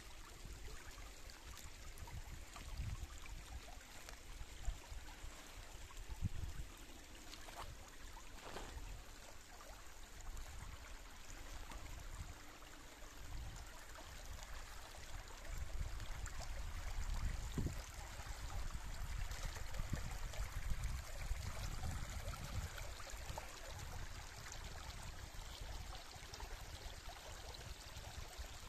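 Shallow woodland stream running and trickling over stones in a steady wash of water. Uneven low rumbles come and go beneath it.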